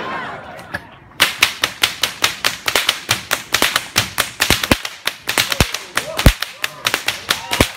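Whips cracked in a fast, unbroken run, about five or six sharp cracks a second, starting about a second in, with crowd chatter before the cracking begins.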